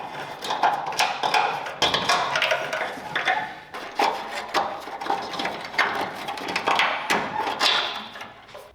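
Hand tools working on an old truck's fasteners: irregular metallic clicks and clatter, typical of a wrench or ratchet turning bolts.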